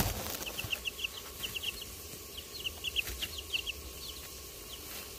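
Young chicks, about two and a half weeks old, peeping: many short, high chirps in quick succession that thin out toward the end.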